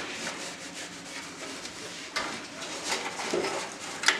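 Cloth wiping and rubbing inside a desktop PC case, brushing over cables and sheet metal, with a few light knocks of handling.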